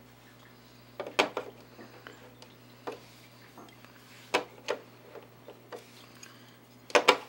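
Clicks and clinks of a small metal mounting bracket and screws being handled and set against the plastic back panel of an LCD TV: a few separate sharp knocks, with a cluster of them near the end, over a low steady hum.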